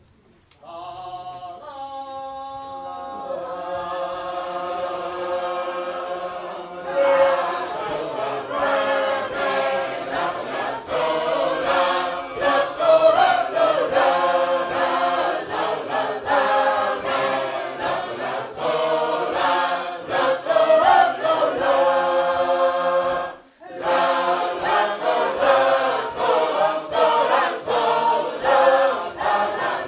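Sacred Harp shape-note singers, a small mixed group singing a cappella in parts. The starting pitch is held a few seconds in, the full group comes in loud about seven seconds in, and the singing breaks off for a moment about two-thirds of the way through before carrying on.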